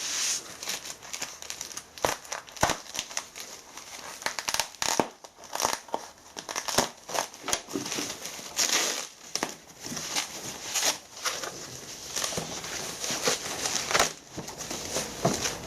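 Packaging being unwrapped by hand: wrapping crinkles and rustles in irregular crackling bursts, with small clicks and knocks.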